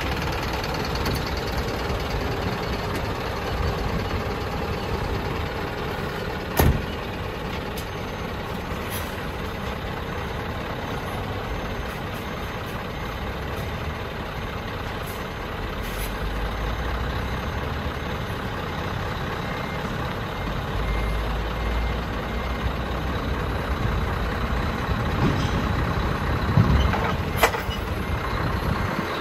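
Scania tractor unit's diesel engine running as it reverses under the trailer and shunts, with a reversing beeper. A single sharp clunk about six and a half seconds in, the kingpin locking into the fifth wheel, and a few smaller knocks near the end.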